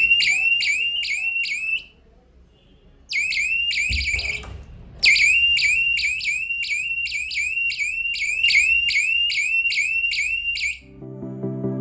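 Electronic alarm of a DIY door security alarm circuit sounding: a high-pitched repeating chirp, about three a second, in three bursts that stop and restart, which signals that the alarm has been triggered. A low knock comes between the second and third bursts, and music starts near the end.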